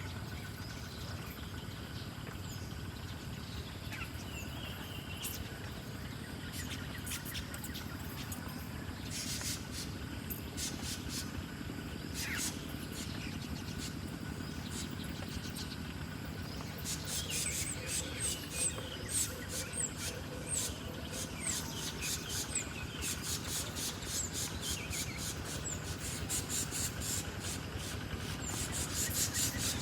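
Small birds chirping in quick, high-pitched series: scattered at first, then frequent and busy through the second half, over a steady low outdoor rumble.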